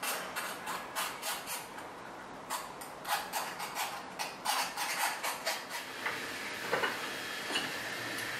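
Quick scraping strokes of a small hand tool on a brass part, about three or four a second, with a short pause about two seconds in. The strokes stop about six seconds in, leaving a faint steady high tone and a couple of light clicks.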